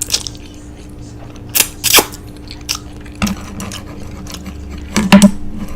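Loud eating sounds: crunching bites and chewing of food, with a string of sharp crunchy clicks. The loudest cluster comes about five seconds in.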